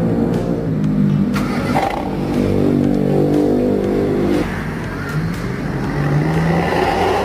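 Pickup truck engine accelerating through an aftermarket exhaust with a growling 'snoring' note: the pitch climbs, drops sharply about four and a half seconds in, then climbs again.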